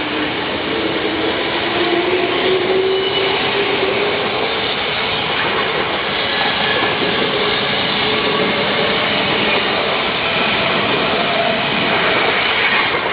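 An Odakyu electric train passing close by at a level crossing: loud, steady wheel and running noise with a motor whine rising in pitch over the first few seconds.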